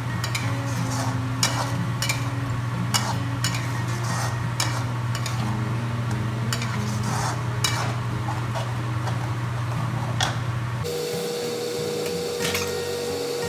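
Metal spatula stirring and scraping green chilli sambal frying in oil in a wok, with irregular clinks against the pan and a light sizzle. The stirring thins out near the end.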